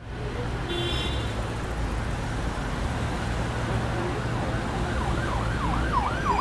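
City street traffic noise, a steady low rumble. There is a brief high-pitched tone about a second in. About five seconds in an emergency vehicle siren starts, sweeping rapidly up and down about three times a second in a yelp pattern.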